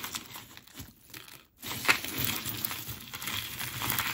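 Crinkling and rustling from hands rummaging through a lot of jewelry and its packaging, with a sharp click about two seconds in.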